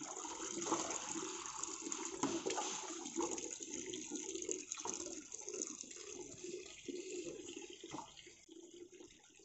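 Tap water pouring in a stream into a plastic bucket, splashing steadily as it fills; it grows fainter near the end.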